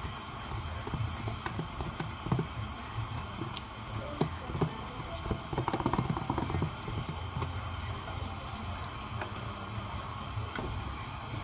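Chicken and vegetables simmering in a frying pan on a gas hob as cream is poured in, with scattered small clicks and knocks, busiest about halfway through. Near the end a whisk starts stirring in the pan.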